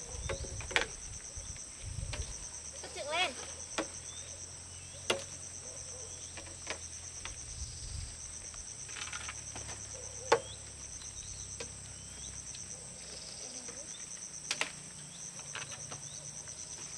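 Insects trilling in a steady, high, fast-pulsing chorus, with a sharp knock every few seconds and a few short bird chirps.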